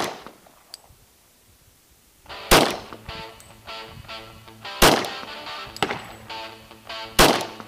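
Three pistol shots from a Glock 22 in .40 S&W, spaced about two and a half seconds apart, the first about two and a half seconds in. Background music with sustained notes comes in just before the first of them.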